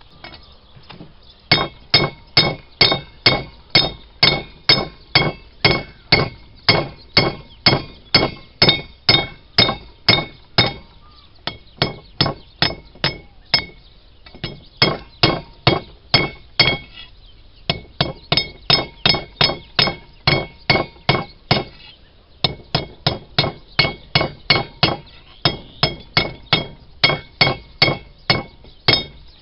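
Blacksmith's hammer striking hot rebar on an anvil, a steady run of about two to three blows a second with a ringing clink on each, in several runs broken by short pauses. The blows are flattening the end of the rebar into a spoon shape for an arrowhead socket.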